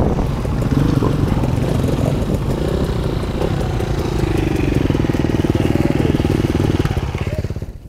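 Dirt bike engines running close by at a steady, pulsing idle. The sound drops away suddenly about seven and a half seconds in.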